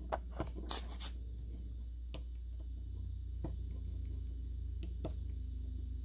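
Small sharp clicks and taps as a desoldering tool works the solder joints of a circuit board, several in the first second and a few spaced ones after, over a steady low hum.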